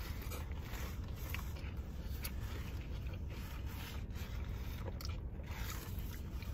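People biting and chewing toasted sub sandwiches, with irregular crackles and crinkles of the paper wrapper, over a steady low hum.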